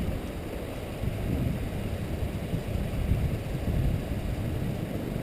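Low, fluttering rumble of wind buffeting the microphone of a moving action camera in typhoon winds.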